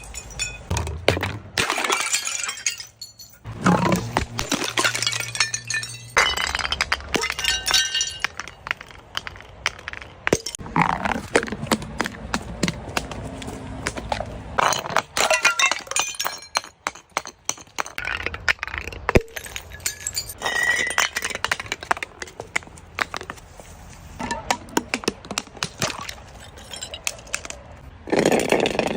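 Glass bottles smashing one after another, with sharp shattering crashes and the clinking of glass pieces between them.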